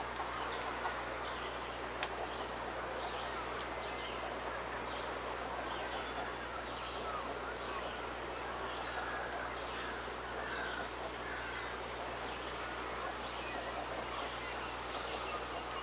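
Birds calling: a steady string of short, high chirps, several each second, over a constant background hiss.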